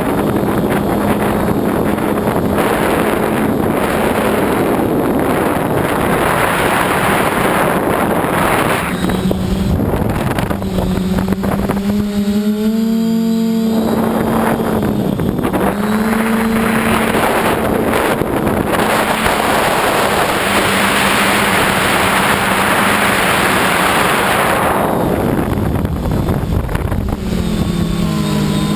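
Multirotor drone's electric motors and propellers humming, their pitch rising and falling as the drone is steered, under heavy wind buffeting the microphone. The wind eases briefly about halfway through, leaving the motor hum clear, and near the end the tones slide down together.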